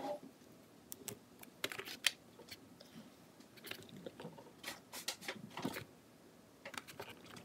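Hands handling and pressing a plastic Play-Doh mold down onto modelling dough: scattered soft clicks and taps of the plastic pieces with short squishy rustles.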